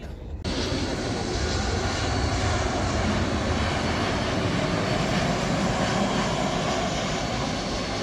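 Jet engines of a KLM Boeing 737 on final approach: a steady rushing rumble with a faint high whine, starting suddenly about half a second in.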